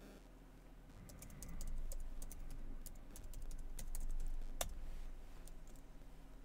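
Typing on a computer keyboard: a quick run of keystrokes, with one louder key strike about four and a half seconds in.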